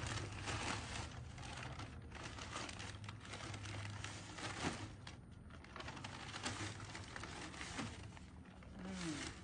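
Irregular crinkling and rustling with scattered crackles, the sound of something being handled and crumpled.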